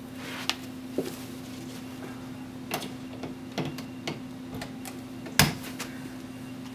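A few scattered light clicks and knocks from handling the laptop and its charger plug, the loudest about five and a half seconds in, over a steady low hum.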